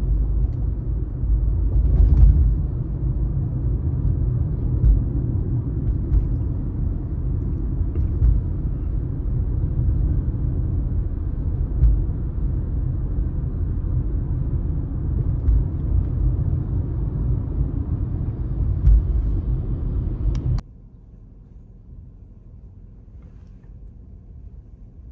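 Steady low road and engine rumble of a moving car. It cuts off suddenly about twenty seconds in, leaving a much quieter low background.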